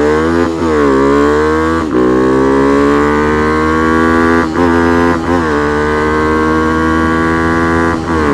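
Yamaha WR125X's single-cylinder four-stroke engine accelerating hard from a standing start through the gears. Its pitch climbs in each gear and drops at each shift, about five times, and one of the shifts is missed.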